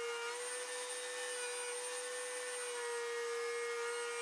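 Table-mounted router spinning a chamfer bit, cutting a chamfer along the edge of an end-grain walnut cutting board: a steady high motor whine whose pitch shifts slightly a couple of times.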